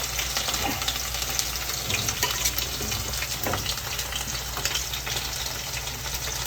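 Food frying in hot oil: a steady sizzle with scattered small crackles and clicks.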